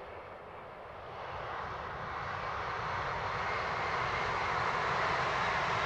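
Alstom ETR 104 'Pop' electric train running at speed on test track rails, a rushing noise of wheels and air that grows louder over the first few seconds as it approaches and then holds.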